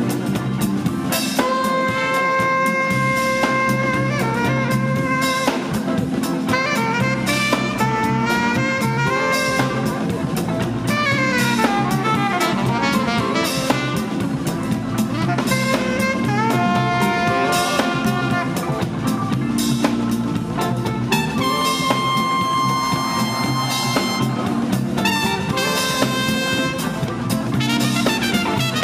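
Live soul-jazz band playing a funky groove: drum kit, electric bass and electric guitar under a horn section of trumpet and saxophone holding long notes, with sliding runs about eleven seconds in.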